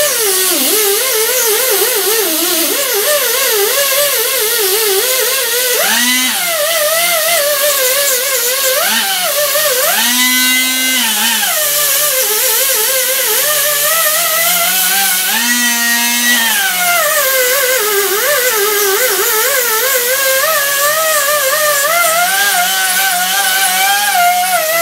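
Die grinder with a small abrasive disc scuffing the deck surface of a cast iron LQ4 V8 engine block: a continuous high whine that wavers and swings up and down in pitch as the load on the disc changes.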